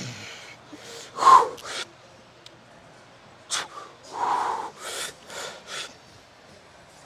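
A weightlifter's forceful breathing during a set of incline barbell bench presses: short sharp exhales and gasps with the reps. The loudest comes just over a second in, and a quick run of breaths follows from about three and a half seconds on.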